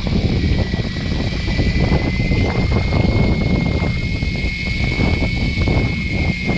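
Steady low rumble of a fishing boat's engine, with wind buffeting the microphone and a faint, thin high whine.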